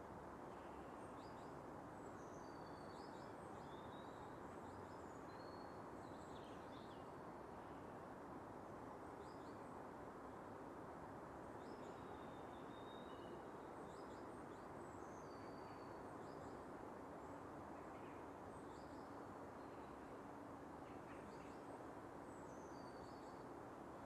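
Faint birdsong ambience: small birds give short high chirps and brief whistles over and over, above a steady low hiss of background noise.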